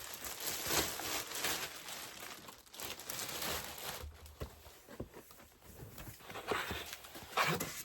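Cardboard box and packaging rustling, scraping and knocking as hands try to work a figure out of a tight, stuck box.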